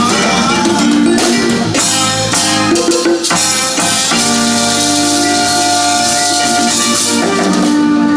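A live band plays with hand percussion and drums. From about halfway through, the band holds long sustained notes, like the closing bars of the tune.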